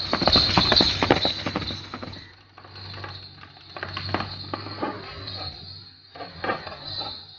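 Hoofbeats of a galloping horse on a dirt lane, a quick irregular drumming of hooves. They are loud at first, fade after about two seconds, then grow again as the horse comes back closer.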